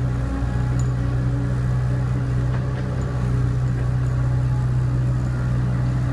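Diesel engine of a heavy construction machine running steadily at a constant low pitch, with a few faint light clicks.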